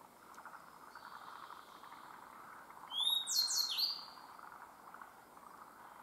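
Grey bunting singing. A faint, thin held whistle comes about a second in, then about three seconds in a loud phrase of quick high slurred whistles sweeping up and down, lasting about a second.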